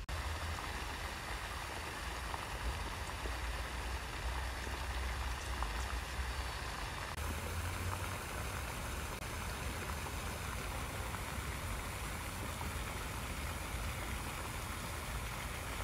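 Wind buffeting the microphone outdoors: a steady hiss with a low rumble that rises and falls.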